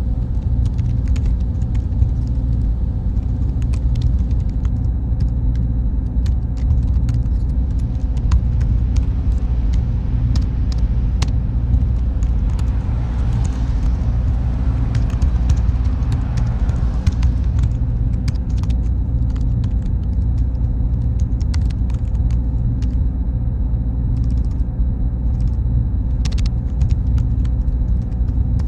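Server room ambience: a steady low hum and rumble of cooling fans with a faint high whine and scattered small clicks, and a brief swell of hiss about halfway through.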